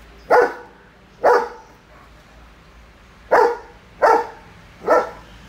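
German Shepherd barking loudly: five short, sharp barks, two about a second apart, then a pause of about two seconds and three more in quick succession.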